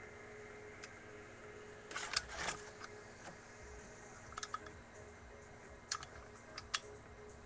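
Scattered light clicks and knocks of plastic and metal parts being handled as the CYMA CM035A airsoft rifle's gearbox is worked out of its receiver: a short cluster about two seconds in, then a few single clicks, over a faint steady hum.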